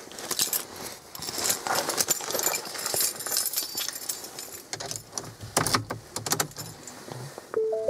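Car keys jangling and clicking as they are handled in the cabin. Just before the end, a two-note electronic chime starts.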